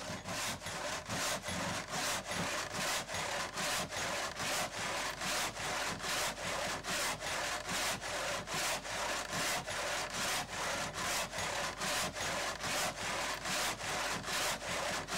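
Hand saw cutting wood with steady, even strokes, about two to three a second, each stroke a dry rasping hiss.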